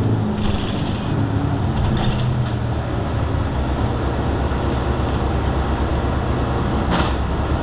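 New Flyer XD60 articulated bus heard from inside, its drivetrain running as the bus slows toward a stop, with a brief high sound about seven seconds in.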